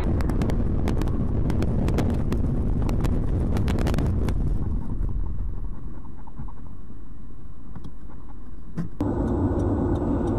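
Car road and engine noise with a quick series of sharp clicks and knocks over the first four or five seconds. About nine seconds in the sound cuts abruptly to a steady engine hum.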